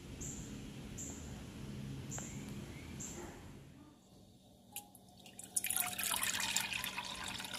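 Green leaf juice poured from a glass measuring jug into a wok, a loud splashing pour of about two seconds near the end. Before it there is a faint background with a high chirp repeating roughly once a second.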